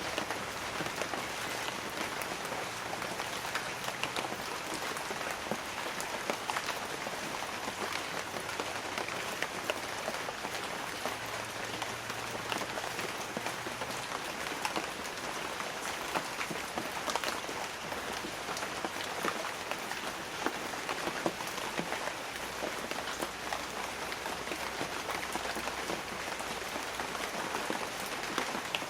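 Light rain falling on banana leaves: a steady, dense patter of many separate drops.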